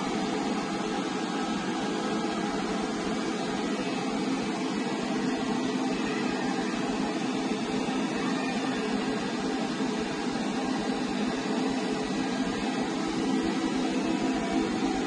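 Steady mechanical whir of running machinery, an even rushing noise with faint steady tones that does not change.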